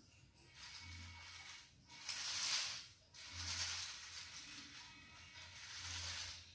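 A small tracked robot's DC gear motors and SG90 servos whirring in three bursts, with plastic tracks and gears rattling. The loudest burst comes about two seconds in and a longer one follows.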